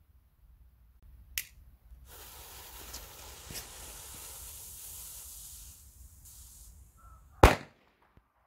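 A firecracker's fuse hisses steadily for about five seconds, then the firecracker goes off with one sharp, loud bang near the end. A short sharp click comes a little over a second in.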